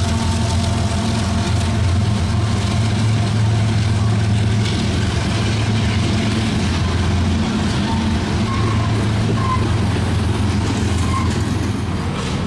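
CN GE ET44AC and a trailing CSX GE diesel locomotive passing close by, their engines a loud steady drone that fades about halfway through as the freight cars behind them rumble past. A few brief faint wheel squeaks near the end.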